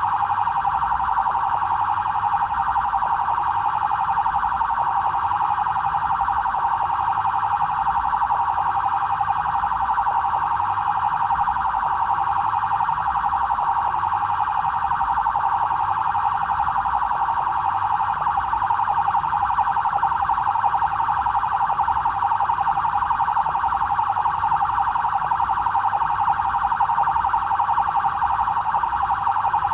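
BAEP police siren sounding continuously: a fast, even pulsing held at one steady pitch, with no slow rise and fall.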